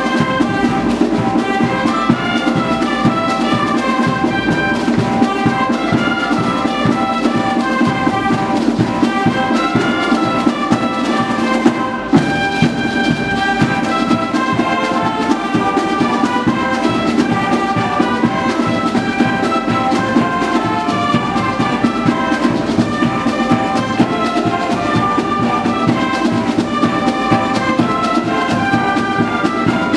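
A Schalmei band playing a lively tune in several parts on multi-bell Martin Schalmeien, reedy horn-like melody lines over a steady drum beat.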